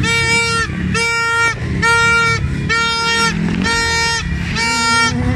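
Vehicle horn honking over and over in even beeps of one steady pitch, a little under a second apart, in the repeating pattern of a car alarm. A dense low rumble of street noise lies under it.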